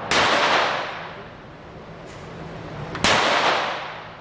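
Two gunshots about three seconds apart in an indoor shooting range, each ringing out in the room for about a second, with a couple of faint clicks between them.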